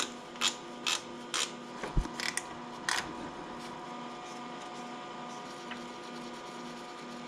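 Hand ratchet wrench clicking as a bolt at the tractor's radiator is loosened, in sharp clicks about two a second for the first three seconds. After that only a steady faint hum remains.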